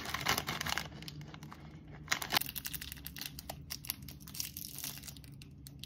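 Plastic snack wrapper crinkling and being torn open: many small crackles, with the busiest stretches in the first second and again about two seconds in.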